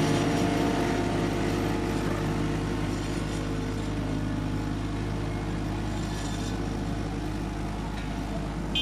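Engine of heavy road-paving machinery running steadily at a constant pitch, a low drone that eases slightly in loudness.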